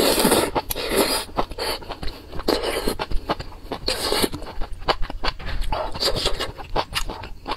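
Close-miked slurping of noodles from a spicy soup, loudest at the very start, followed by repeated wet chewing and mouth sounds.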